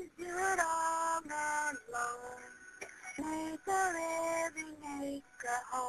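A female voice singing a slow melody in held notes, with short breaks between phrases, on a poor-quality cell phone recording.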